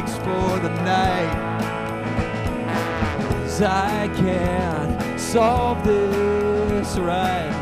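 Live rock band of electric guitar, bass guitar and drum kit, with a trombone carrying a melodic line over it, bending between notes and holding one long note near the end.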